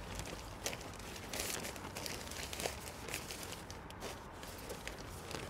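A shower curtain being handled and shifted, rustling and crinkling, with scattered light clicks and taps as it is hung on a bungee cord between grab bars.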